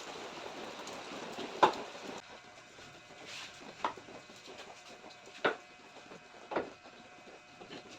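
Four sharp knocks at irregular intervals, the first the loudest, over a faint steady background.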